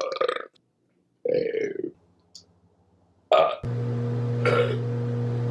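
A man burping loudly, three separate burps in the first four seconds; then a steady low hum comes in, with one more short burp over it.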